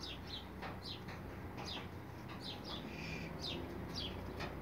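Small birds chirping repeatedly, short falling chirps about twice a second, over a low steady hum.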